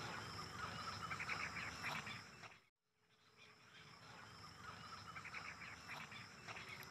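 Faint outdoor ambience: birds chirping in quick trills that come and go, over a steady high insect drone. The sound drops out completely for about half a second near the middle.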